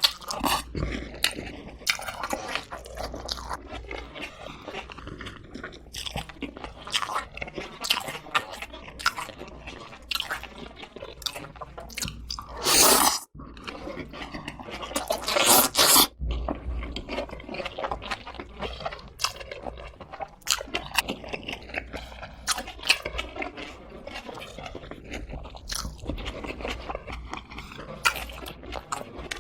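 Close-miked chewing and crunching of fried chicken with green onions: a steady run of crisp crunches and wet mouth clicks, with a couple of louder crunches about halfway through.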